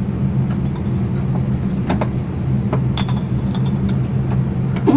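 Steady low hum of an engine running, with a few sharp glassy clinks partway through and a short falling squeal at the very end.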